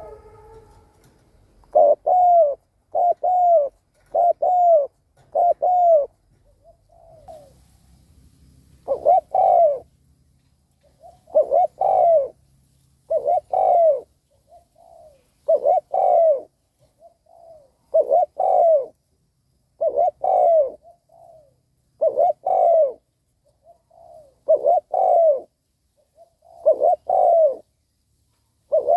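Spotted dove cooing: a string of short, low, slightly falling coos, four in quick succession after a couple of seconds, then after a pause roughly one every two seconds, with faint softer notes between. This is the male's rapid 'gù' display coo, the kind a decoy dove is kept to give to challenge and draw in wild doves.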